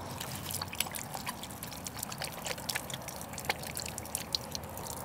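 A thin stream of water trickling from a cooler's plastic spigot and splashing onto hands being rinsed, with a dense patter of small splashes.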